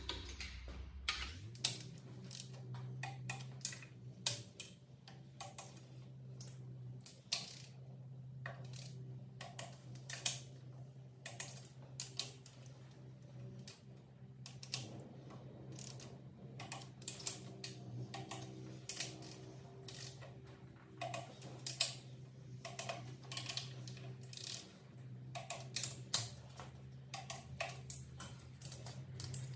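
Click-type torque wrench ratcheting and clicking as slant six cylinder head bolts are tightened one after another to torque, over a steady low hum.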